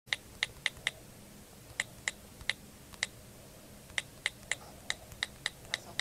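Keyboard typing clicks in short, irregular runs, each click a sharp, alike tick.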